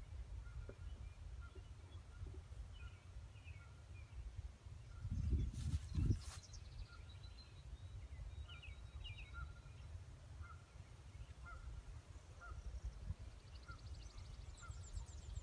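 Wind rumbling on the microphone, with a bird calling in short repeated notes in the background and a brief clatter about five to six seconds in.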